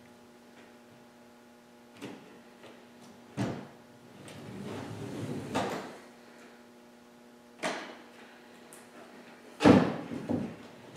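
Manual wheelchair with anti-rollback wheels rolling over a plywood ramp and concrete floor. A few separate knocks and thumps come as the wheels bump over the ramp's edge, the loudest near the end, over a low steady hum.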